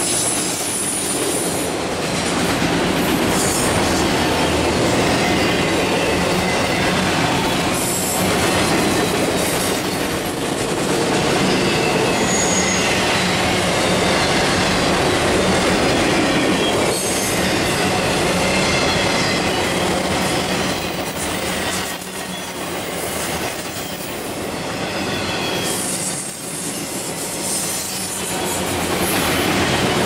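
Empty autorack freight cars rolling past close by: a steady rumble and rattle of steel wheels on rail, with faint intermittent wheel squeal and a few sharp clunks.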